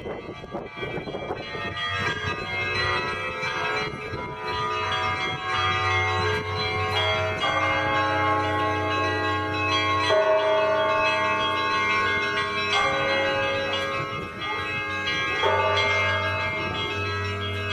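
Bells of the Alexander-Svirsky Monastery belfry ringing: several bells of different pitches struck over one another, their tones ringing on and overlapping. The ringing grows louder over the first two seconds. A deep, low hum joins about five seconds in.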